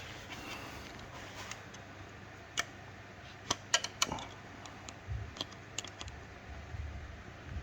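Irregular small clicks and taps of a hand tool working a small retaining clip off a diesel injector's fuel line, a cluster of several quick clicks midway, with a few dull low bumps.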